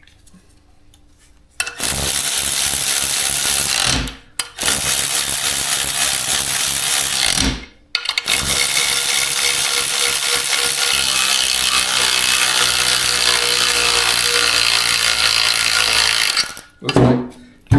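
A power tool running in three long steady runs, stopping briefly about four seconds in and again about seven and a half seconds in.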